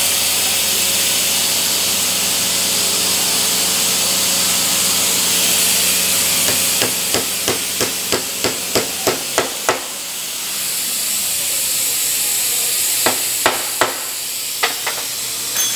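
Hammer tapping a steel dust cap onto a disc harrow hub: a run of about a dozen quick taps starting about six seconds in, then three or four more single blows near the end, over a steady hiss and hum.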